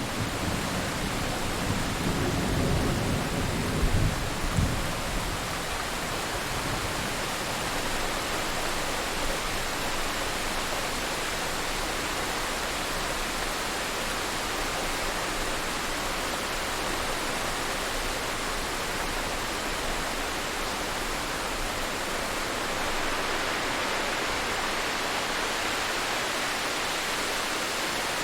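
Heavy steady rain from a thunderstorm, with thunder rumbling low at the start and dying away about five seconds in.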